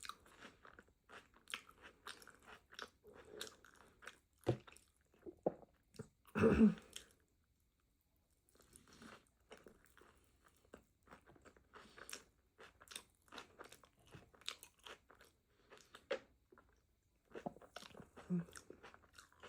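Close-miked chewing and crunching of a taco, with wet mouth clicks, smacks and crunches coming thick and fast. There is one louder mouth noise about six and a half seconds in, and a brief pause around eight seconds in.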